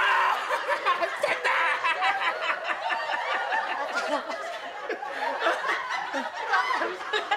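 A man and a woman wailing and sobbing loudly in exaggerated comic fright, a continuous crying that sounds close to laughter.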